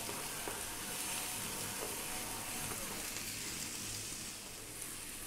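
Sliced onion, garlic and ginger sizzling steadily in hot sunflower oil in a frying pan over high heat, softening as they fry.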